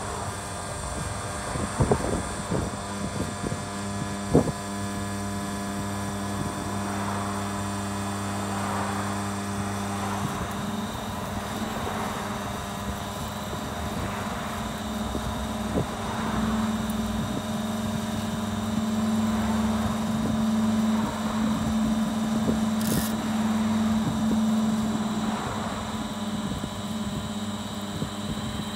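Hydraulic oil filter crusher running, a steady hum, as its ram presses a spin-on oil filter flat; the hum grows a little stronger past the middle as the press bears down on the filter. A few sharp knocks come in the first seconds, the loudest about four seconds in.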